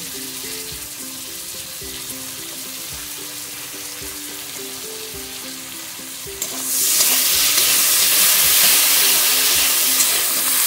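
Small shrimp frying in hot oil in an aluminium wok, a soft sizzle at first. About two-thirds of the way in more shrimp go into the oil and the sizzle suddenly gets much louder, while a metal spatula stirs them.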